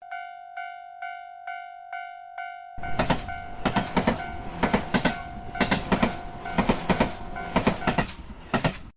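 Railroad crossing signal bell ringing a steady "kan-kan" about twice a second. About three seconds in, a train passes, its wheels clacking over the rail joints in regular groups, with the crossing bell still ringing beneath. The bell stops about a second before the train sound cuts off suddenly.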